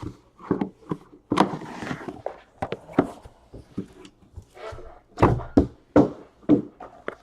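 A run of knocks and thunks, with four heavier ones close together about five to six and a half seconds in: sealed trading-card boxes being handled and set down on a table.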